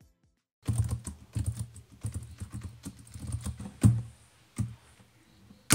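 Fast typing on a laptop keyboard, starting under a second in, with a couple of harder key strikes and ending in one loud, sharp key click.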